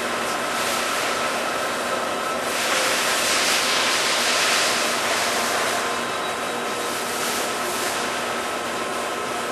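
Summit 36DC heavy-duty gap bed engine lathe running, a steady mechanical hiss with a few faint steady tones through it; the hiss swells briefly about three seconds in.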